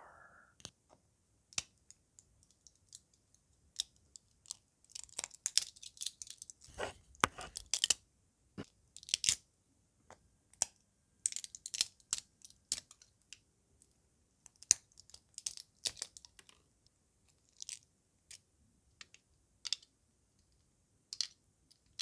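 Support material being picked and snapped out of a freshly 3D-printed plastic siren part with pliers and fingers: irregular crackling and crunching snaps, some in quick clusters, with short pauses between them.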